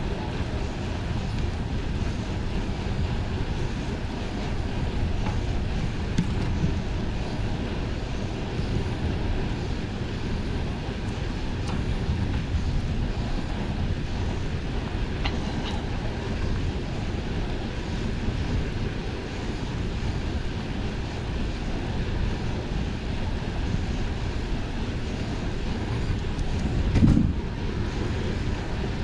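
Wind buffeting the microphone while riding a bicycle, a steady low rumble, with one short louder bump near the end.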